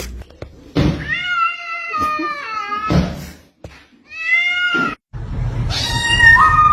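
A domestic cat meowing: one long drawn-out meow about a second in, then a shorter meow around four seconds in. After an abrupt cut, held tones sit over a steady low hum and are the loudest part.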